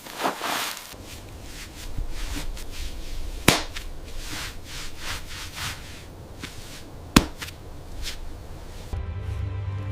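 Two sharp cracks or knocks, nearly four seconds apart, over scattered rustling and a low rumble. Music comes in near the end.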